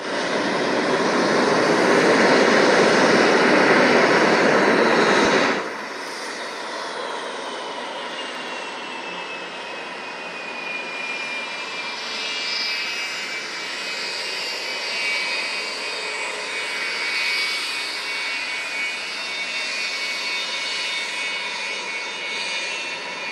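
Aermacchi MB-339 PAN jet trainer's Rolls-Royce Viper turbojet whining as it taxis. A loud rush of noise fills about the first five seconds and cuts off suddenly. After that a high whine falls in pitch and settles to a steady tone.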